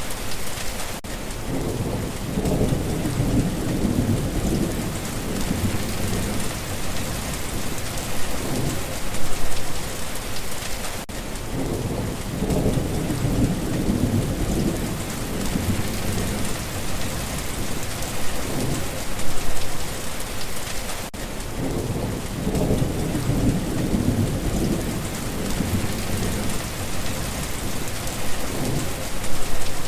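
Steady rain hiss with low rumbles of thunder that swell and fade about every ten seconds.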